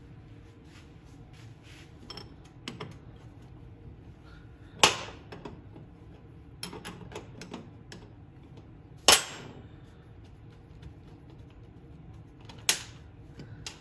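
Sharp metal clacks of a wrench and carburetor parts knocking on a steel workbench while the float bowl bolt is loosened: three loud ones about five, nine and thirteen seconds in, the middle one ringing briefly, with lighter clinks between.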